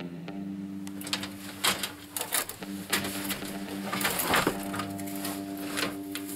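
Rummaging through a pile of scrap: repeated knocks, clatter and rustling as metal pieces, wires and bags are moved, heaviest about a second in and again around four seconds in, over a steady low tone.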